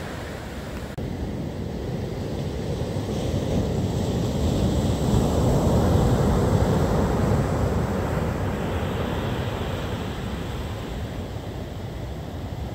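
Storm surf breaking on a beach: a large wave crashes and grows loudest about halfway through, then eases as it washes back. Wind blows against the microphone.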